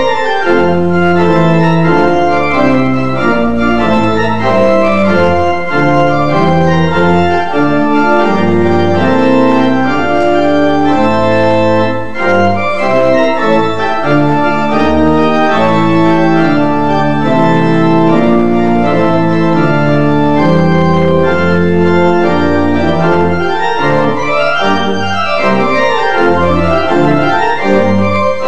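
Church organ playing a Christmas chorale prelude: full held chords over a moving line of deep bass notes, without a break.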